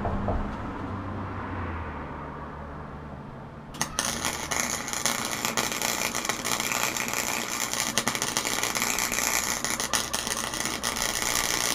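Harbor Freight flux-core wire-feed welder, set to maximum, striking an arc about four seconds in and then welding without a break: a steady, loud crackle and sizzle as a bead is laid into the ground-out crack of a steel axe head. Before the arc strikes there is only a low hum.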